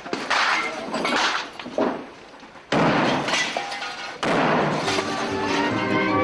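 Gunfire and blasts in a firefight: several sharp bangs in the first two seconds, then two heavy blasts about a second and a half apart, each with a long crashing tail. Music comes in near the end.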